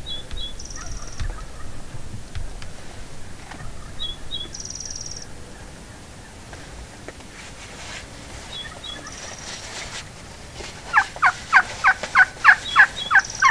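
Wild turkey yelping: a quick run of about nine falling notes, roughly four a second, near the end.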